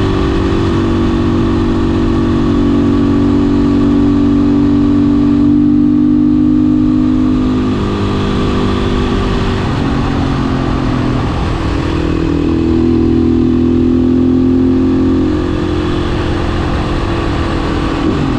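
Single-cylinder four-stroke engine of a Beta 500 RS supermoto running under way, its note swelling and easing back twice as the throttle is opened and closed.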